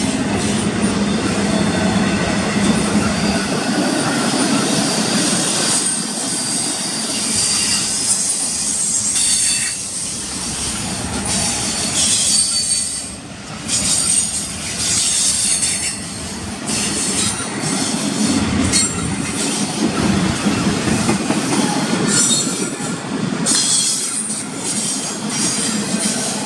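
Intermodal freight cars, double-stack container well cars and trailer flatcars, rolling steadily past: the continuous rumble of steel wheels on rail, with a high-pitched wheel squeal that comes and goes.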